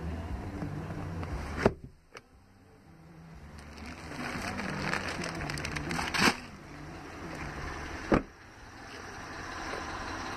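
Three sharp clunks from the cab of a 2015 Chevrolet Colorado crew cab pickup: a rear seat latching into place about two seconds in, then the rear door latch opening about six seconds in and the door shutting about two seconds later. A low hum runs underneath, from the idling engine.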